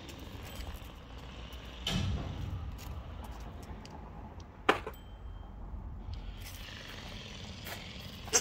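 Low rumbling noise with a dull thump about two seconds in, then two sharp clicks, one near the middle and one at the very end.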